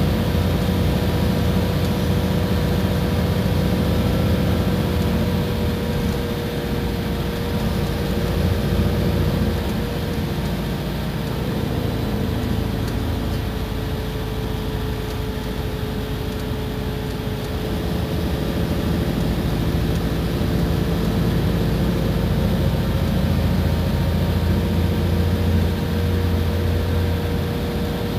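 Iveco Crossway Line bus under way, its engine running steadily as a low drone with a thin whine that drifts slowly in pitch, over road rumble.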